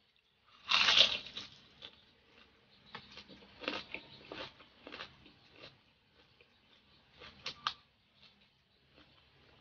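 A bite into crispy chicharon bulaklak (deep-fried pork intestine), with a loud crunch about a second in, followed by crunchy chewing.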